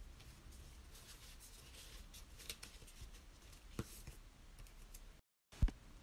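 Faint rustling and light tapping of a paper sticker sheet being handled. A sharp click comes about two-thirds of the way through, then the sound cuts out for a moment and a low thump follows near the end.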